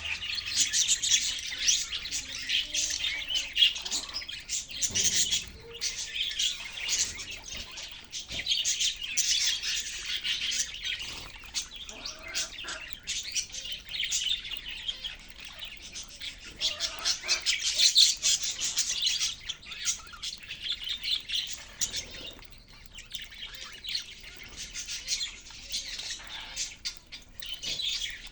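A group of caged budgerigars chirping and chattering continuously, many short overlapping high-pitched calls with occasional squawks.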